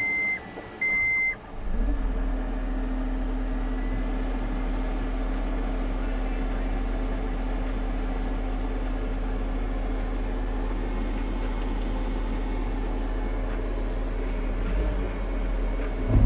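Two short beeps from a skid steer's cab keypad, then the skid steer's diesel engine starts about a second and a half in and runs at a steady idle, heard from inside the cab.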